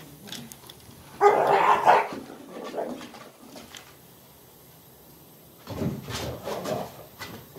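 Dogs play-fighting. A loud burst of barking comes about a second in, and rougher, noisier play vocalising and scuffling follows from about six seconds in.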